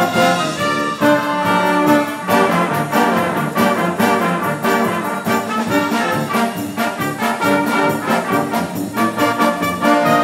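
A large brass band with flutes playing a hymn arrangement in full: trumpets, trombones and tubas sounding together in chords, with many short, evenly spaced notes.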